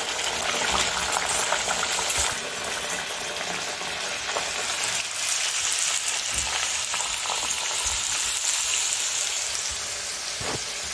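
Stuffed rice-flour puri deep-frying in hot oil in an iron kadai, sizzling steadily, with a few light knocks from a slotted metal spoon.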